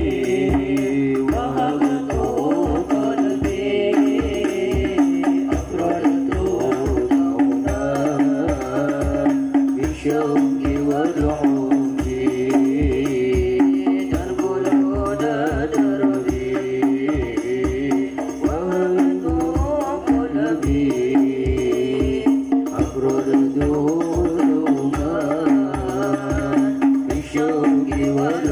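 Hadroh ensemble performing: rebana frame drums beat a steady rhythm under a voice singing a devotional melody, amplified through a PA loudspeaker.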